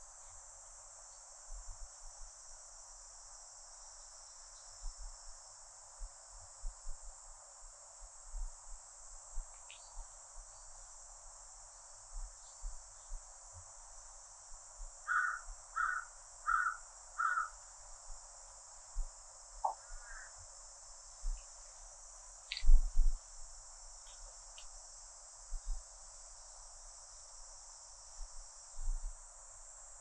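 Cicadas singing in a steady high-pitched drone. Over it a bird calls four times in an even row about halfway through, with a few short chirps, and irregular low thuds come through, the loudest about three-quarters of the way in.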